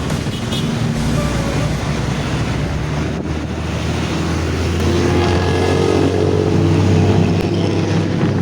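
Bus diesel engine running through a loud 'ngorok' snoring-style exhaust, a deep drone that rises in pitch and gets louder about halfway through as the bus pulls harder.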